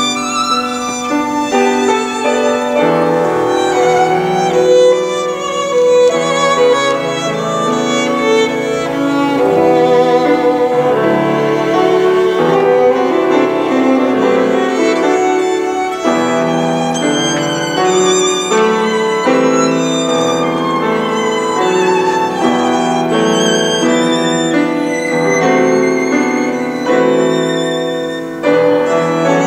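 Violin bowed with vibrato in a flowing melody, accompanied by piano chords.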